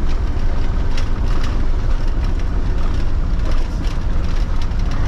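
Mitsubishi Fuso truck's 8DC9 V8 diesel engine running steadily as a heavy drone, heard from inside the cab along with road noise, while the truck is loaded with about 30 tons of cement.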